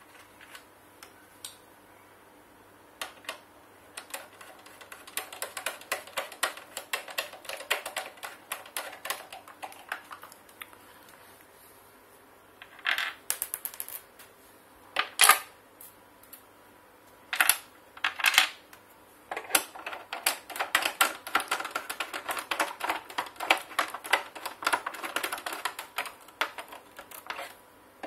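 Screwdriver working the screws out of a rice grinder's plastic base: long runs of rapid clicking, with a few louder sharp knocks in the middle.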